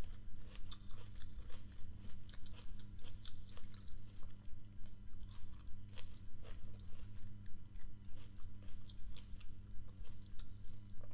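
Close-miked chewing of red grapes: wet, crisp clicks and crunches in a steady rhythm of about three a second, over a low steady hum.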